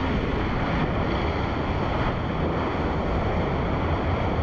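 Steady rush of water streaming down a waterslide chute during a ride, mixed with air noise.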